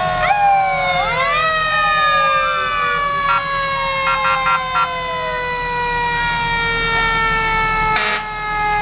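Several fire truck sirens overlapping, each rising briefly and then winding slowly down in pitch, with a few short toots about three to five seconds in. A steady engine rumble lies underneath. A brief sharp noise comes about eight seconds in.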